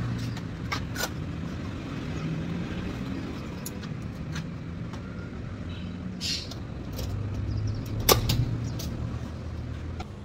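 City street traffic noise: a steady low rumble of passing vehicles, with a few sharp clicks, the loudest about eight seconds in.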